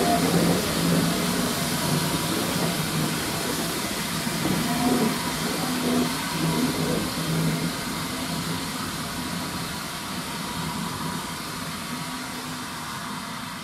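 Steam-hauled train of vintage coaches moving away, its running sound fading steadily as it recedes.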